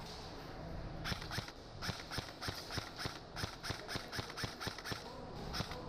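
A quick, uneven series of sharp clicks and taps, about three or four a second, starting about a second in over a steady outdoor noise.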